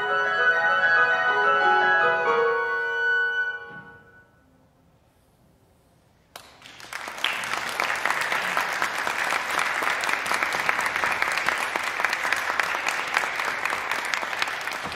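Flute and piano play the closing bars, ending on a held note that fades out about four seconds in. After two seconds of near silence, audience applause starts suddenly and goes on steadily.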